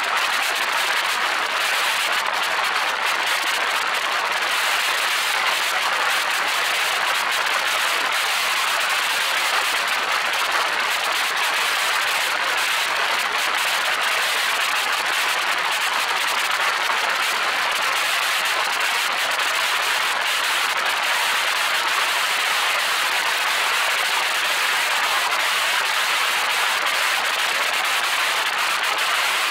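Steady rushing hiss of airflow over a camera mounted on the outside of a moving vehicle. The noise is even and unbroken, with no engine note standing out.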